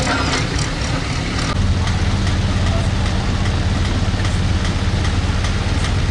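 Heavy diesel engine idling with a steady low hum that comes in strongly about a second and a half in, over the rush of floodwater.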